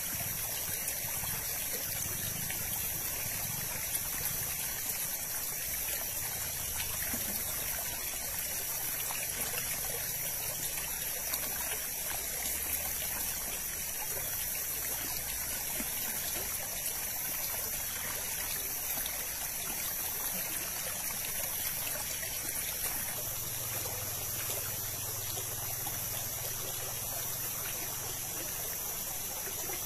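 Water of a forest stream running steadily, an even trickling rush.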